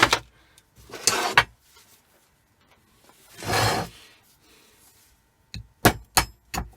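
Handling of small scrap parts and tools on a workbench: a short scrape about a second in, a longer soft rubbing sound midway, then a quick run of sharp clicks and knocks near the end.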